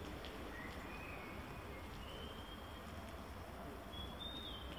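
Faint outdoor background: a steady low rumble with a few short, thin, high whistled bird notes at shifting pitches, the last and highest near the end.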